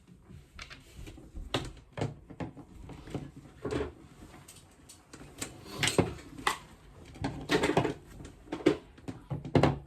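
Small plastic toy pieces, MathLink cubes and playset parts, clicking and knocking as they are handled on a table: about ten irregular taps and clacks with short quiet gaps between them.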